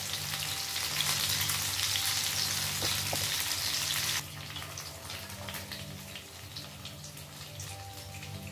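Hot oil sizzling around paneer tikka skewers shallow-frying in a nonstick pan. The sizzle cuts off suddenly about four seconds in, leaving faint scattered crackles.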